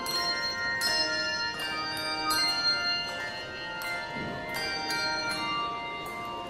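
Handbell choir ringing a hymn tune in chords: brass handbells struck together and left to ring, their notes overlapping, with a fresh strike about every half second.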